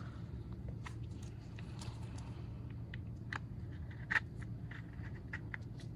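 Scattered small clicks and light scrapes of a pry tool working around a phone's screen edge as the screen is pried away from the frame, with one louder click about four seconds in, over a low steady hum.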